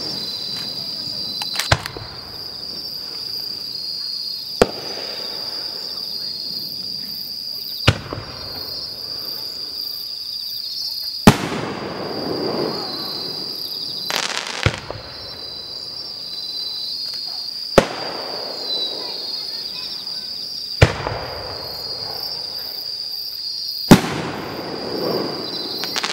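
Japanese aerial firework shells bursting one at a time, eight sharp bangs spaced about three seconds apart. Under them runs a steady high chirring of insects.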